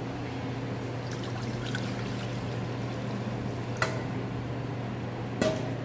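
Water poured from a stainless steel bowl into an aluminium saucepan, a steady pour over a low hum, with two short sharp clicks in the second half.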